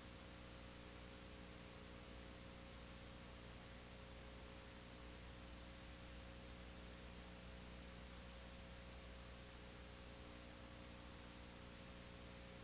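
Near silence: a faint steady hum and hiss, with no other sound.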